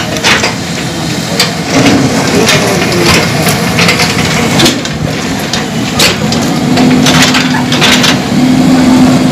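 Boulders knocking, grinding and cracking against each other and a steel bucket as a JCB backhoe loader digs into a heap of rock. The loader's diesel engine runs underneath, with a steady engine note holding through the last few seconds.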